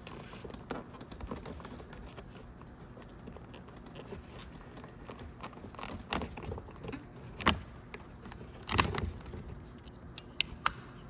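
Plastic trim tool prying a power sliding door switch out of a Dodge Caravan's plastic door trim: scattered small plastic clicks and snaps as the pressure clips let go, the loudest about nine seconds in and two sharp clicks near the end.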